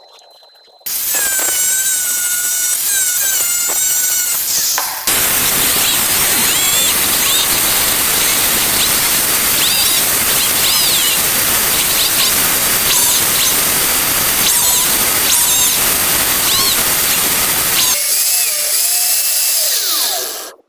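Gas burner of a small home-made foundry furnace firing, a loud steady hiss with wavering whistling tones over it. It gets louder about five seconds in, drops back a little near the end, then cuts off.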